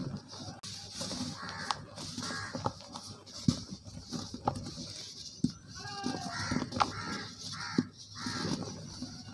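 Soft lumps of dry cement crumbled by hand, with crunchy clicks and a sandy hiss as the powder sifts through the fingers into a plastic tub. Several short, harsh animal calls sound in the background.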